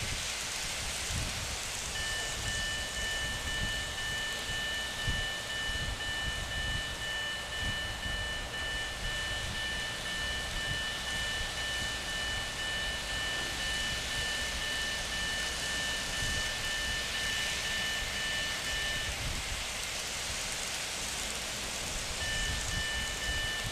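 Electronic level-crossing alarm sounding a steady high two-note tone. It switches on about 2 seconds in, stops about 19 seconds in, and comes back on about three seconds later. The alarm sounds while a train is inside the section on either track and stops once both tracks are clear. A steady hiss runs underneath.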